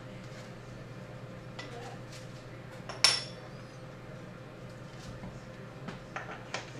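One sharp metallic clink with a short high ring about three seconds in, amid a few lighter clicks from handling coffee gear on the counter, over a steady low hum.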